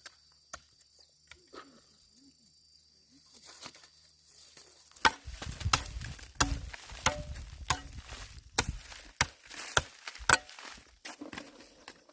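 Repeated chopping blows from a hand tool, about two a second, each a sharp strike with a dull thud, starting about five seconds in after a quiet stretch.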